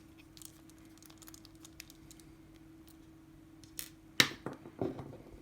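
Small metal lock parts being handled: faint scattered ticks, then a sharp metallic click and a short clatter about four seconds in, with a couple more clicks near the end.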